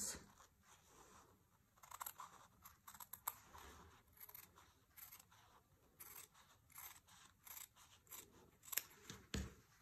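Small fabric scissors making faint, irregular snips as they trim a seam allowance close to the stitching line, cutting through a single layer of fabric.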